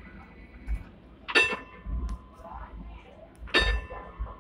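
Hong Kong tram's foot-operated warning gong struck twice, about two seconds apart, each clang ringing on briefly to warn pedestrians on the tracks, with crowd chatter underneath.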